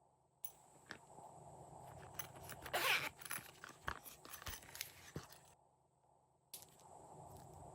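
Hands working glossy slime: scattered sticky clicks and small crackling pops as it is squished and stretched, loudest a little before three seconds in.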